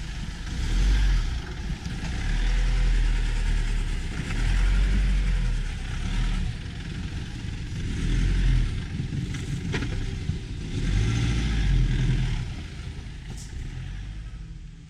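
An off-road vehicle's engine revs hard in about five repeated surges, rising and falling, as the vehicle is driven through rough ground. There is a single sharp click just before ten seconds in.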